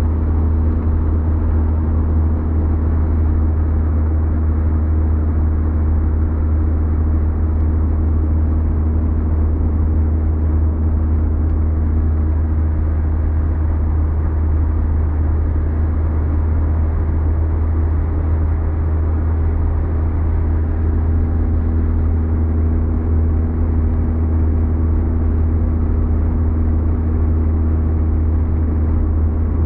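Car cruising at motorway speed, heard from inside the cabin: a steady, deep rumble of engine and tyre-on-road noise with a constant low hum.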